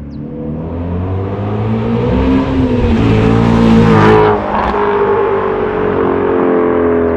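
2018 Shelby GT350's 5.2-litre naturally aspirated flat-plane-crank V8 accelerating as the car drives by. It climbs in pitch and loudness up to the pass about four seconds in, then drops in pitch as the car pulls away.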